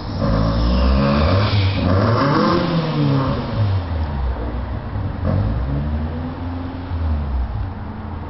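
Gio PB710 electric scooter under way: its motor hum rises in pitch over the first two to three seconds, then falls and levels off, over a heavy low rumble.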